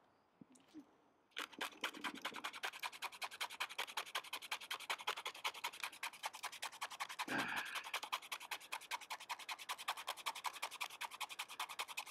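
Knife blade scraping birch bark in rapid, regular strokes, several a second, starting about a second and a half in.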